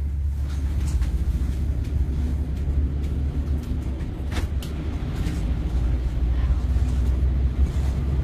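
Steady low rumble of a moving vehicle heard from inside, with a few light clicks, the clearest about four seconds in.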